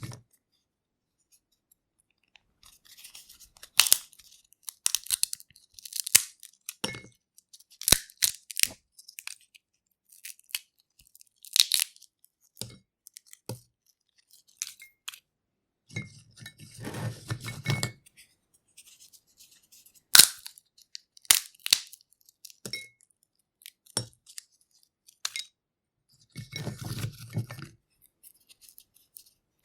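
Peanut shells being cracked and peeled by hand: irregular sharp snaps and crackles of dry shell breaking, with two longer stretches of crunching, rustling shell and papery skin being rubbed off.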